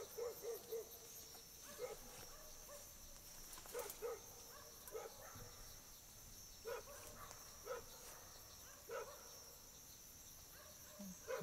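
Faint dog barking: single short barks every second or two, with a quick run of about four near the start, over the steady high drone of night insects.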